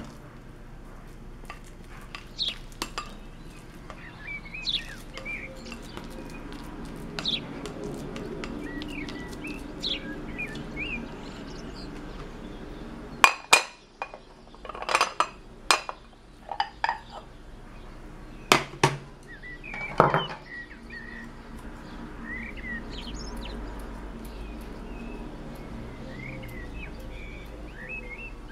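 Ceramic bowl and serving utensils clinking and scraping against dishes as fried rice is served and a rice bowl is turned out onto a plate. The sharpest clinks come in two clusters around the middle. Birds chirp intermittently in the background.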